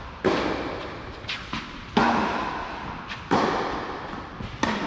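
Tennis rally: four loud racket strikes on the ball about every one and a half seconds, each with a long echo in the covered hall, with softer ball bounces on the clay between them.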